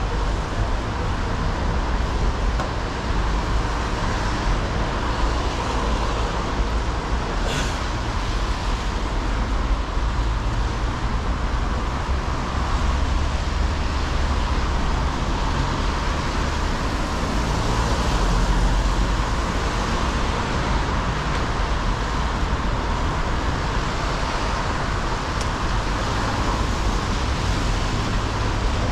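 Steady road-traffic noise on a wet city street, with a constant low rumble and a single sharp click about seven and a half seconds in.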